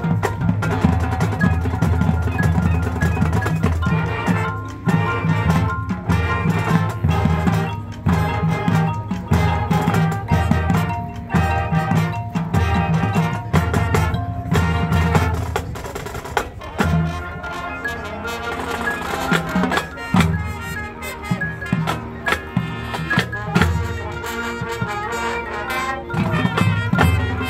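Marching band performing live outdoors: brass playing over a drumline, with low drums striking in a steady pulse.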